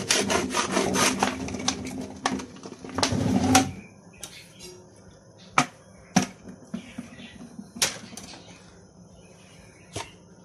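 Cracked green olives tumbling out of a plastic bag into a plastic colander: a dense rattle of olives hitting the plastic for the first few seconds, then a few single clicks as the last olives are squeezed out and drop.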